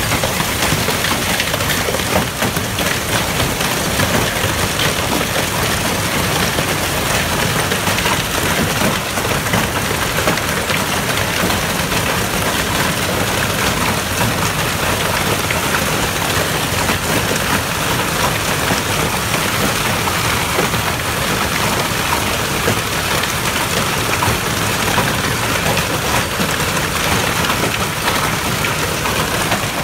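Hail and rain pelting a lawn and a wooden fence: a steady, dense hiss shot through with countless small clicks of hailstones striking.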